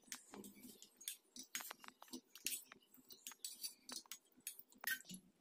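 Faint, irregular light clinks and taps as boiled amla (Indian gooseberries) are picked by hand out of a steel pot and set down in a plate.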